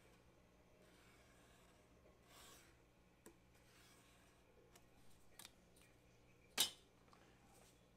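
Faint desk handling sounds: a felt-tip marker drawn along a ruler on card, with a few small scrapes and ticks. One sharp click, much louder than the rest, comes about two-thirds of the way through.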